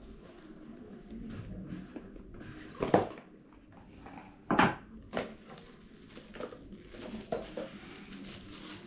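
A phone box and its packaging being handled: a light rustle with a few sharp knocks, the loudest about three, four and a half and five seconds in, and smaller clicks between them.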